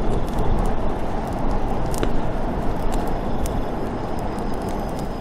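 Campfire crackling with scattered sharp pops over a steady, low rush of forest wind.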